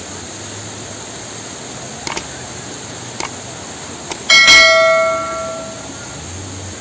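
A single bell-like metallic strike, ringing with several clear tones that fade over about a second and a half. A few light clicks come before it, over a steady background hiss.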